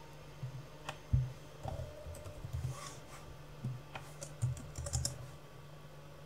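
Typing on a computer keyboard: irregular keystrokes in short runs, the loudest a little over a second in.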